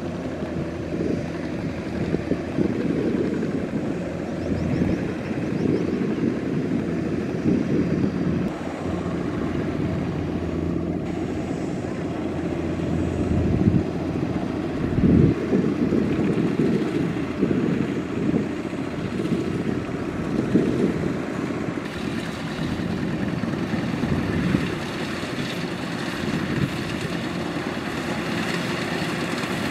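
Kubota DC-105X rice combine harvester working through a paddy: its diesel engine and threshing machinery run steadily under load. The sound gets brighter and closer from about 22 seconds in.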